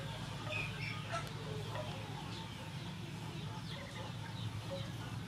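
Chickens clucking, with short scattered bird calls, over a steady low hum.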